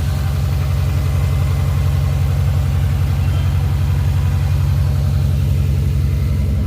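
Toyota Supra MK3's 7M-GTE turbocharged straight-six idling steadily through an HKS Silent Hi-Power aftermarket exhaust, a deep, even exhaust note. The engine is being run to warm up while air bleeds out of the freshly refilled cooling system.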